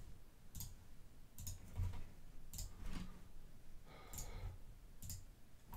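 Faint, irregular sharp clicks, about seven over the few seconds, with a brief pitched buzz about four seconds in.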